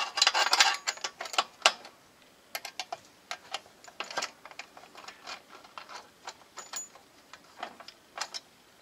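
Ratchet wrench clicking as it turns a bolt on a ride-on mower's steering bracket: a quick run of clicks for about the first two seconds, then scattered single clicks and light metal taps.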